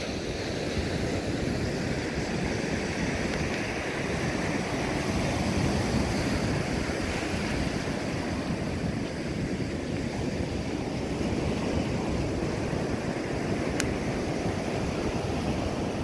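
Steady wash of ocean surf breaking along a beach, mixed with wind on the microphone.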